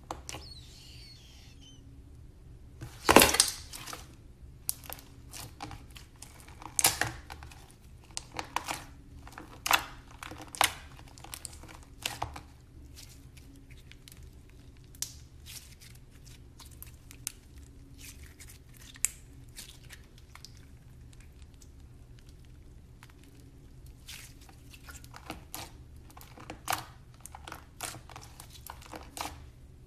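Slime being squeezed and stretched by hand, its trapped air bubbles popping in irregular crackles and clicks. The loudest cluster comes about three seconds in, and the pops thin out in the middle before picking up again near the end.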